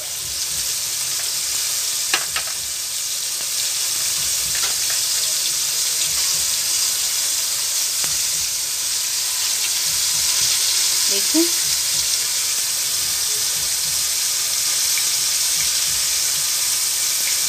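Bombil (Bombay duck) fish coated in cornflour and rava frying in hot oil in a pan: a steady sizzle with a few brief pops.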